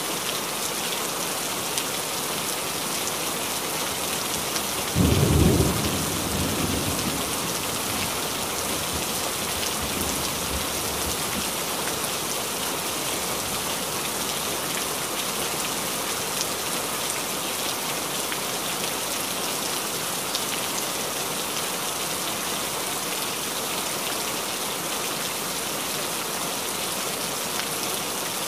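Steady hiss of falling rain, with a sudden low rumble about five seconds in that fades over a second or two.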